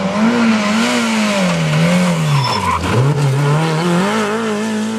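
Rally car engine running hard through a corner, its pitch rising and falling with the throttle and gear changes. It drops low about three seconds in, then climbs again as the car accelerates away.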